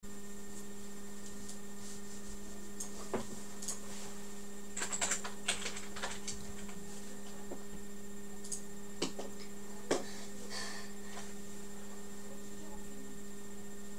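A steady low hum with a scattered handful of light clicks and taps.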